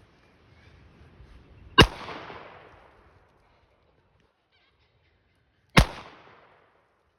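Two shots from a Taurus 856 .38 Special revolver, about four seconds apart, each a sharp crack followed by a short echo. Faint wind rumble on the microphone before the first shot.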